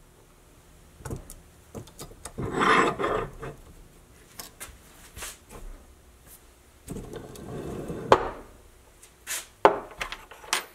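A steel ball bearing pressed by a one-ton arbor press onto a washer seated in a hardwood die, cupping the washer. Two short rubbing, scraping stretches, with scattered sharp clicks of metal on metal and wood as the ball and washer are handled.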